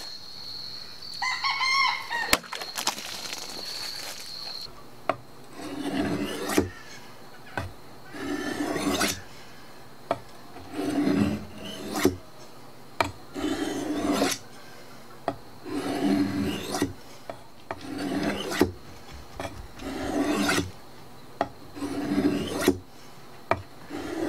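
Bowie knife blade being sharpened on a benchstone: long, even scraping strokes of steel across the stone, about one every two seconds, with small clicks between strokes.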